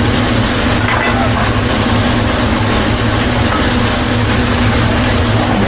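Steady loud noise of a hibachi grill station: the exhaust hood fan running with a low hum, and food sizzling on the hot griddle.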